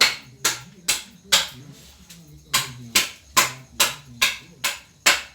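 Rhythmic hand clapping, about two claps a second, with a short pause about two seconds in.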